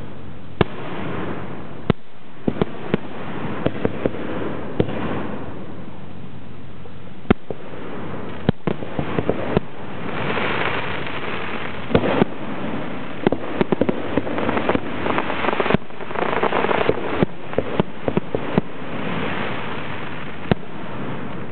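Aerial fireworks shells bursting overhead, sharp bangs at an irregular pace, several close together. Between them come stretches of crackling hiss from glittering crackle shells.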